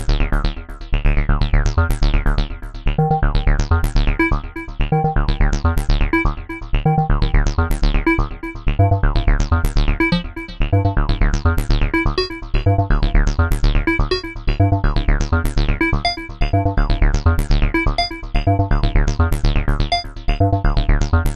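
Electronic bass music: a heavy, steady synth bass line under a rapid stream of short falling synth zaps, pulsing in phrases of about two seconds.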